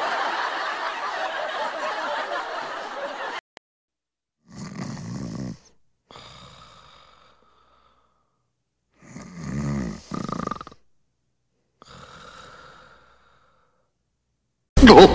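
Snoring: two long snores about five seconds apart, each followed by a soft breathy exhale. A steady hiss fills the first three seconds, and a sudden loud burst comes near the end.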